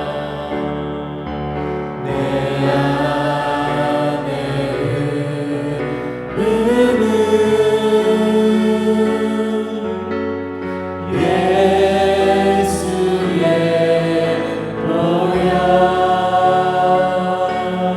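Slow Korean gospel praise song played by a church worship team: held chords under a wavering melody line, with no words made out.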